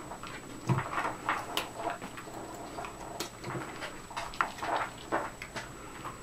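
Border collie chewing a treat: irregular crunches and clicks of its teeth, a few a second, with short pauses between.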